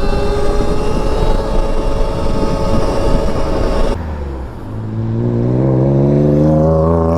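Stark Varg electric dirt bike on the move: a steady electric motor whine over wind and tyre noise. About four seconds in the wind noise drops away, and a lower motor whine climbs steadily in pitch as the bike speeds up.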